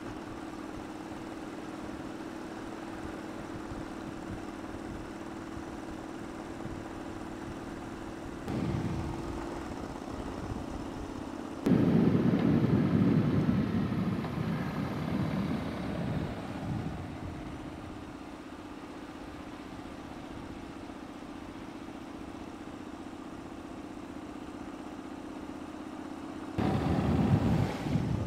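Engine of a slow-moving camera vehicle droning steadily, with loud rushes of wind on the microphone in the middle and again near the end.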